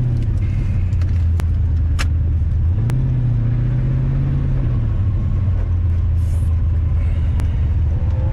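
1996 Corvette's LT4 V8 heard from inside the car under hard driving, its note climbing about three seconds in and dropping about two seconds later, with a few sharp clicks. The engine is misfiring, likely running on only five or six cylinders, which the driver puts down to spark plugs, wires or the Opti-Spark distributor.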